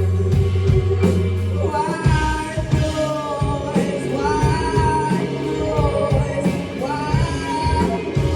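Live rock band playing: a low bass note is held for the first second and a half or so, then drums come in and a singer's wavering melody is sung over the band.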